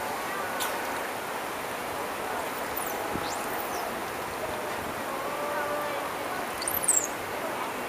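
Pool water washing and lapping, with a murmur of distant voices. A few thin, high, swooping whistles come through, the loudest near the end.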